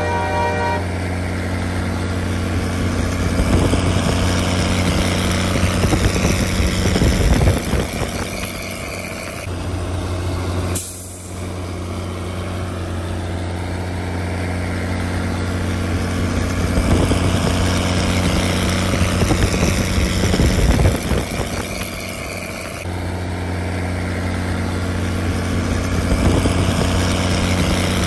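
Straight-piped Cummins diesel engine of a diesel pusher motorhome running, a deep steady drone from the open exhaust that swells louder and eases off several times. The sound breaks off and resumes abruptly twice, about a third of the way in and again past the three-quarter mark.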